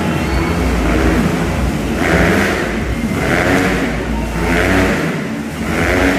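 Motorcycles revving as they circle inside a steel-mesh globe of death, the engine note swelling and fading about once a second as each lap goes round.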